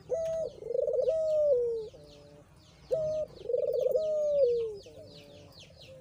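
Puter dove (Barbary or ringneck dove) cooing two phrases about three seconds apart. Each phrase is a short high note, then a quick rolling coo, then a longer coo that falls in pitch. Faint chirps of small birds run underneath.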